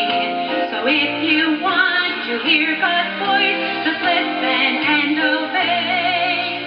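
Children's song: a woman's singing voice with instrumental backing.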